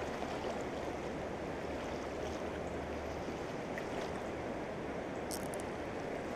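A swollen, muddy river's current rushing steadily past the bank. A couple of faint high clicks come about five seconds in.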